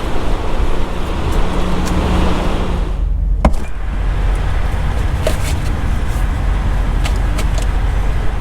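Semi truck's diesel engine running with a steady low drone, a hiss over the first few seconds and a sharp click about three and a half seconds in.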